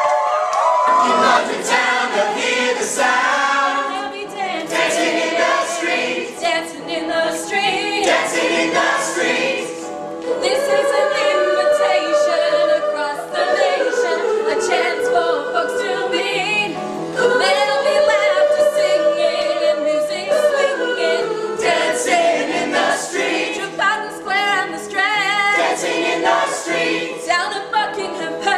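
A group of voices singing together in chorus, with sharp percussive hits among the singing.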